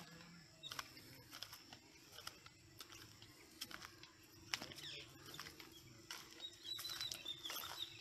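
Faint footsteps and rustling on dry ground, with a few short, high bird chirps near the end.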